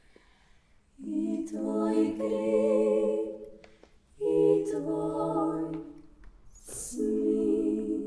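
Female klapa ensemble singing a cappella in close harmony: after a second's pause, three held chords that each swell and fade, with a short hiss just before the third.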